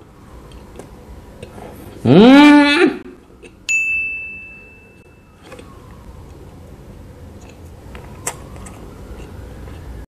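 A man's loud rising "hmm?" with his mouth full of food. Then a single bell-like ding, an editing sound effect, that rings and fades over about a second and a half.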